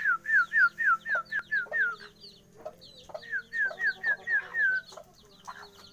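Kampung chicks about 18 days old peeping loudly in two quick runs of short, falling notes, roughly eight calls a second. The first run lasts about two seconds, the second starts about three seconds in, and fainter higher chirps come between the runs.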